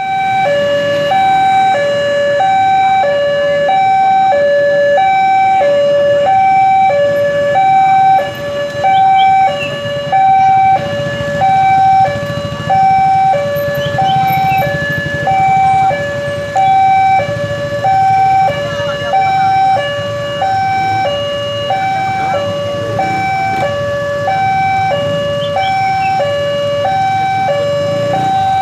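Electronic warning sounder of a Wantech railway level crossing, a loud two-tone alarm alternating high and low about once a second, signalling that the crossing is closed for an approaching train. A low rumble of road traffic lies under it.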